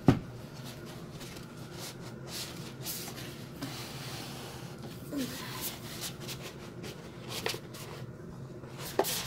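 Large rolled paper poster being unrolled and pressed flat on a wooden table: paper rustling and rubbing, with a sharp knock right at the start and a couple of clicks near the end.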